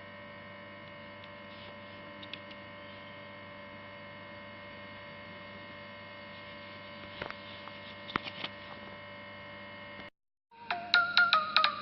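Steady electrical hum with a few faint clicks and taps partway through. Just after ten seconds it cuts out briefly, and a bright ringtone-like melody of quick plucked notes begins.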